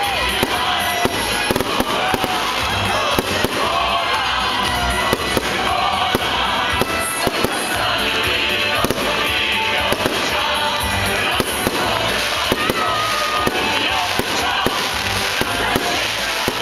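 Large bonfire crackling and popping steadily, with music playing in the background.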